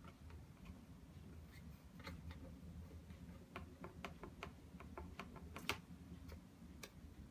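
Faint, irregular light taps and clicks on a cardboard cat-toy box as a teaser wand's stick knocks against its holes and a kitten paws at the toy, growing more frequent from about halfway, with the sharpest tap a little after two-thirds through.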